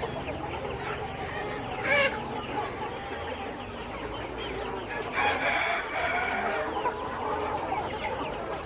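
A flock of kampung chickens clucking and calling together, with one short loud call about two seconds in and a rooster crowing about five seconds in.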